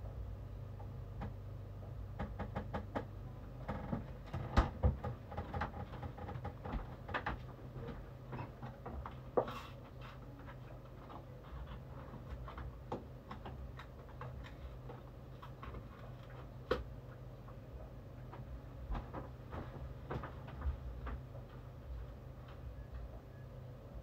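Kitchen work sounds: scattered clicks, taps and knocks of utensils and dishes being handled, busiest in the first ten seconds and sparser after, over a steady low hum.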